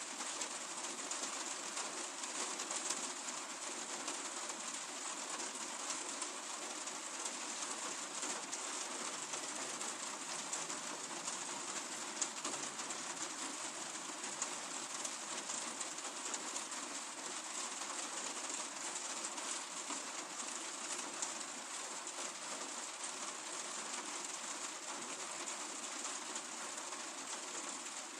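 Steady rain falling, an even hiss with fine patter from the drops and no let-up.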